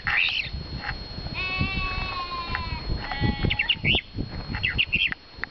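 A mockingbird singing short, quickly changing phrases at the start and twice in the second half. In between come two long, even bleats from passing livestock, over a low rumbling background.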